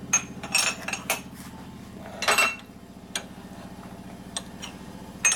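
Metal parts clinking and clattering as a cam cover and steel press plates are handled and set down on a shop press bed: about half a dozen sharp, ringing clinks at irregular intervals, the loudest a little over two seconds in, over a steady low hum.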